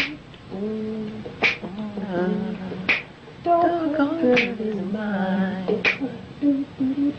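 A home demo work tape played back: a man's wordless vocal melody over mouth-made beatbox percussion, with a sharp snap-like beat about every one and a half seconds.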